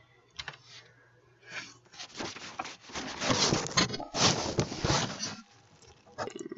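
Handling noise against the webcam's microphone: loud rustling and scraping for about three seconds, with a short break in the middle, followed by a few clicks near the end.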